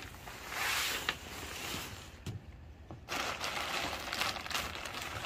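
Black plastic garbage bags rustling and crinkling as they are pulled around by hand, with a brief drop-out to near quiet about two seconds in.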